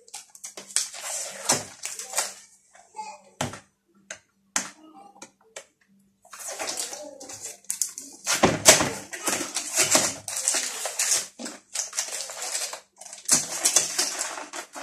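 Cardboard box and packaging of a solar panel rustling and scraping as it is handled and opened, in irregular spells with a sharp knock a few seconds in.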